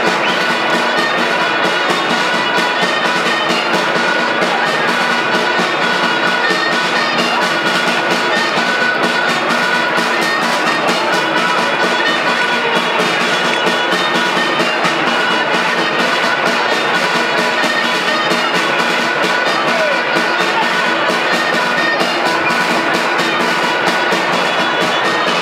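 Festive music: a reedy wind melody over drum, playing steadily without a break.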